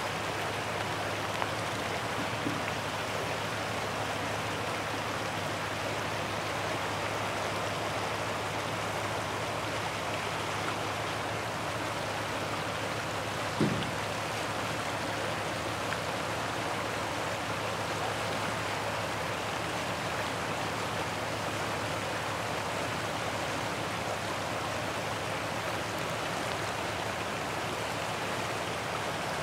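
River water running steadily over a shallow, broken riffle, an even rushing noise. A brief thump about halfway through.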